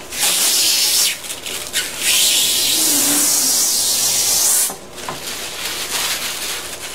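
Protective plastic film being peeled off a clear twin-wall polycarbonate sheet, tearing away with a loud, noisy rip. A few short pulls in the first second or so, then one long steady pull of about two and a half seconds that stops suddenly.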